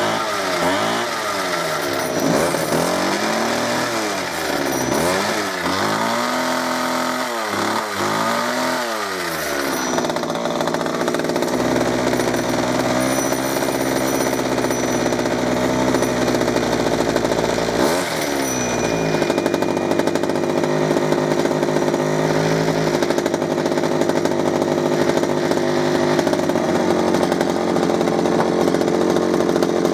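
Small two-stroke engine of a 1996 Sabre HTS-43 petrol hedge trimmer running with a freshly rebuilt carburettor. Its revs rise and fall repeatedly for the first ten seconds or so. After that it runs steadily while the carb's adjustment screw is turned, with one brief dip and recovery in the middle.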